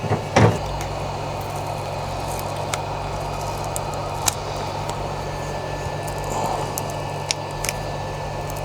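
Heat gun switched on with a click, then blowing steadily with a low hum, warming the adhesive tape on a car radio's display so it can be peeled off. A few light ticks are heard over it.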